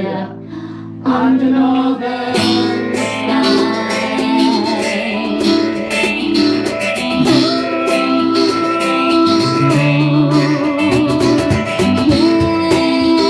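Live band playing, with acoustic guitar, electric guitar and bass. The music thins out briefly, then the full band comes back in about a second in, with a steady beat.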